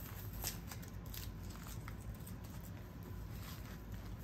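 White paper wrapping rustling and crinkling as it is peeled by hand off a handbag, in a few quick crackles that are busiest in the first two seconds and thin out afterwards.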